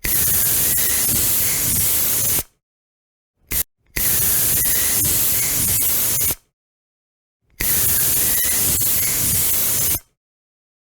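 Deodorant spray hissing in three long sprays of about two and a half seconds each, with a very short spritz between the first and second.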